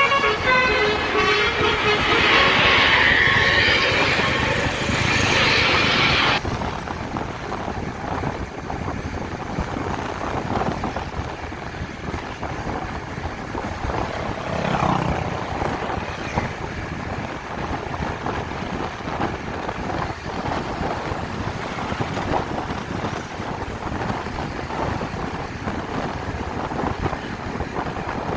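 The last notes of a bus's multi-tone telolet musical horn tune at the very start, followed by a loud rushing noise that cuts off abruptly about six seconds in. Then steady road traffic noise.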